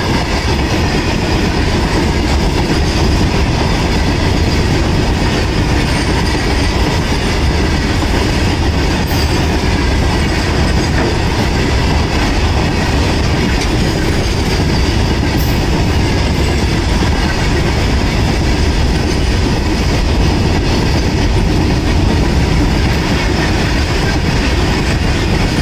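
Goods train of open-top steel wagons rolling past close by: a loud, steady rumble of steel wheels on rail that does not let up.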